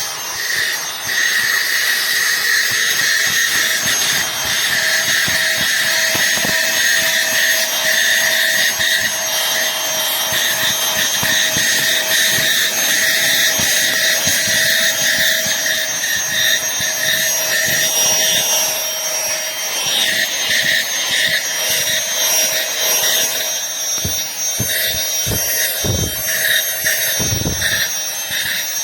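Aspiron cordless handheld vacuum cleaner running on full power: a steady high-pitched motor whine over a rush of airflow. A few low thumps come near the end.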